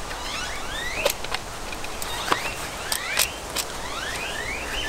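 Screwdriver loosening the terminal screw of an old Zinsco circuit breaker: a run of short squeaks, each rising in pitch, with a few sharp clicks of metal on metal.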